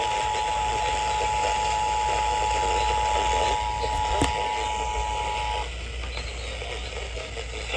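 Emergency Alert System attention signal: a steady two-tone alert tone over background static, cutting off about three-quarters of the way through, with a short click shortly before it stops. The static hiss continues after the tone ends.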